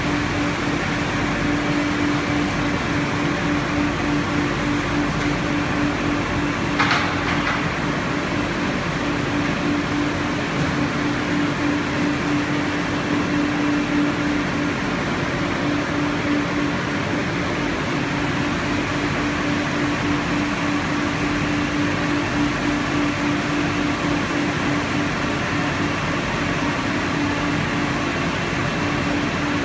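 Conveyorised photo-etching and stripping machine running: a steady machine hum with one strong low tone over a haze of running noise. A brief higher sound comes about seven seconds in.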